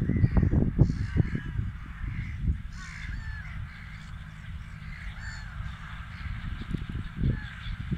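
A flock of gulls calling repeatedly with harsh, crow-like cries. Wind buffets the microphone, most strongly in the first two seconds and again near the end. The low drone of the distant John Deere 6120M tractor engine runs underneath.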